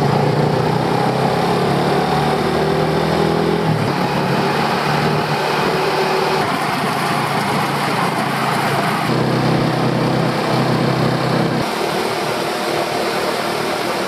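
Small motor scooter with a sidecar running along a road. Its engine note steps up and down a few times as the throttle changes, over steady road noise.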